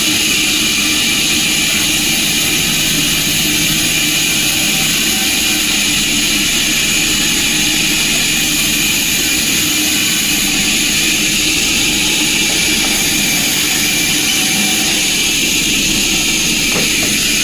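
Sawmill machinery running steadily: a loud, even mechanical noise with a strong high hiss.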